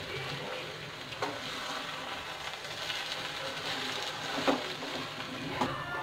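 Metal spoon stirring and scraping poha in a steel pan over a low flame, with a steady soft frying hiss. The spoon knocks against the pan about a second in and twice more in the second half.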